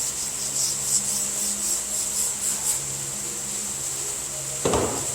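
Sandpaper on a rounded tube sanding block rubbed back and forth over a car body panel in quick scratching strokes, about three a second, cutting down a small high spot; the strokes stop a little before halfway. A single knock comes near the end.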